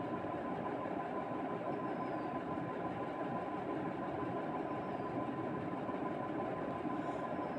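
Steady background hum and hiss with a faint, constant high-pitched tone underneath.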